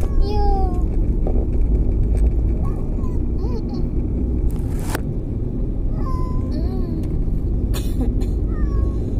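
Cat meowing repeatedly from inside a plastic pet carrier: drawn-out meows that rise and fall, every second or two, over the steady low rumble of a moving car's cabin. A couple of sharp clicks about five and eight seconds in.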